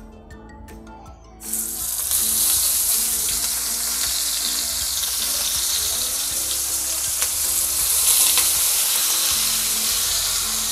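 Whole marinated silver croaker fish going into hot oil in a frying pan: a sudden loud sizzle starts about one and a half seconds in and carries on as a steady frying hiss.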